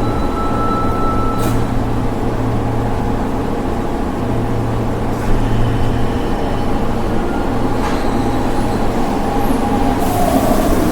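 Metro train running: a steady low rumble with a faint whine that stops about a second and a half in, and a few sharp knocks, the loudest about five seconds in.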